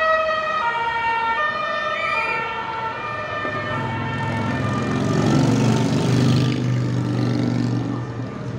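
Police car's two-tone siren alternating between two pitches, fading out about three seconds in. A motorcycle engine then passes close by, rising to its loudest mid-way and easing off near the end.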